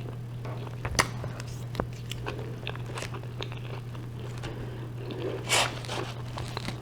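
Close-miked chewing of a gyro, with wet mouth clicks and a louder crunchy bite about five and a half seconds in, over a steady low hum.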